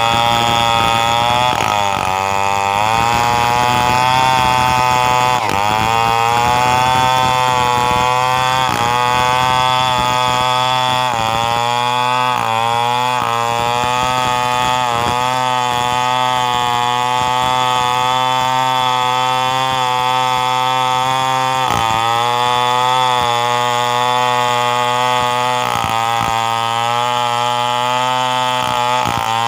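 Stihl 070 two-stroke chainsaw running at high revs while ripping coconut wood. Its pitch sags and recovers every one to three seconds as the chain bites and frees up in the cut.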